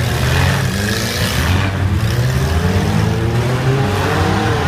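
Engines of several demolition derby cars running and revving at once, one rising in pitch near the end.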